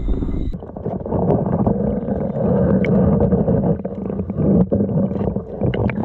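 Stream water rushing and splashing close to the microphone: a loud, dense, steady noise with a few sharp knocks, starting suddenly about half a second in.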